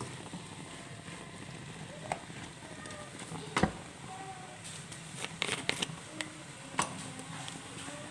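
Light crackle of napa cabbage, tofu and egg cooking in a nonstick wok, with a few sharp knocks and clicks from utensils, the loudest about three and a half seconds in and a quick run of them past the halfway mark, over a low steady hum.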